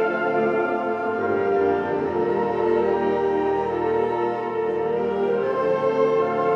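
Concert band of woodwinds, brass and percussion playing, holding full sustained chords.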